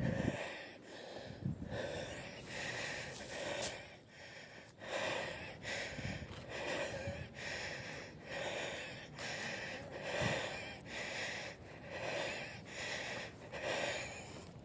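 A man breathing hard and fast close to the microphone, about one and a half breaths a second: he is out of breath from walking.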